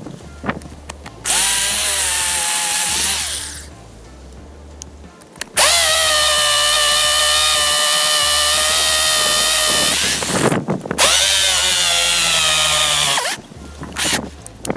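Corded DrillMaster 1/2-inch hammer drill with a masonry bit boring into concrete, run in three bursts: a short one that winds down, a longer steady one of about four seconds, then another short one. In between, lower handling noise and wind.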